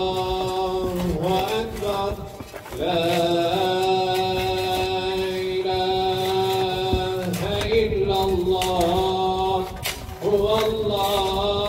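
A man chanting in Arabic in long, drawn-out held notes, pausing for breath about two and a half seconds in and again near the end.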